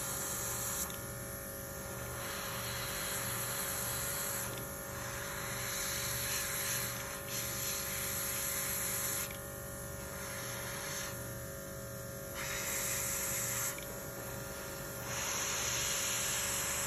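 Small airbrush compressor humming steadily while the airbrush sprays in on-and-off stretches of hissing air, each lasting one to three seconds.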